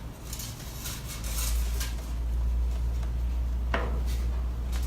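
Light clinks, knocks and rubbing of photo booth hardware being handled and set down, over a steady low rumble that comes in about a second in.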